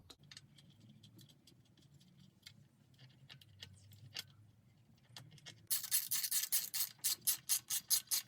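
Scattered faint clicks of parts being handled, then from about six seconds in a loud run of sharp, rapid clicks, about five or six a second.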